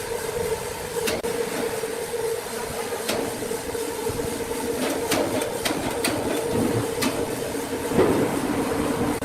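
Sawmill machinery running with a steady hum over a hiss, and a few sharp clicks and knocks, the loudest about eight seconds in.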